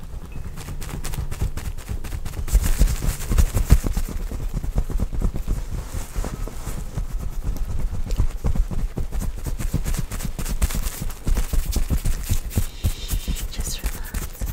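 Hands massaging bare skin close to the microphone: a fast, uneven run of soft thumps and rubbing strokes, loudest a few seconds in.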